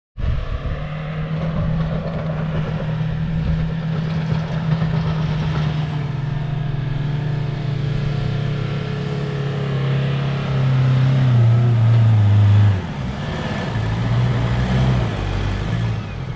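Four-wheel-drive vehicle's engine revving hard under load on a steep off-road hill climb. The pitch holds steady at first, then drops as the engine labours and grows louder about ten seconds in, and it eases off sharply a couple of seconds later.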